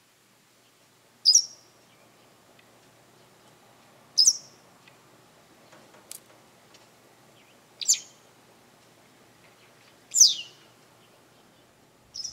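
Wagtail calling: five short, sharp chirps, each sliding down in pitch, a few seconds apart.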